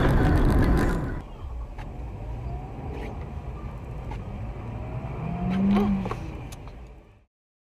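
Dashcam audio from inside a moving car on a snowy road: steady low engine and road rumble with a few faint ticks. The first second is louder and rougher, and a short rising-then-falling engine tone comes about six seconds in. The sound cuts off suddenly near the end.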